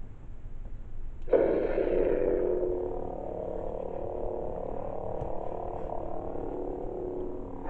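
Lightsaber sound board powering up: about a second and a half in, a sudden loud ignition sound, then the steady electric hum of the saber idling. The sound comes from an NBv3 sound board in a Graflex 2.0 hilt.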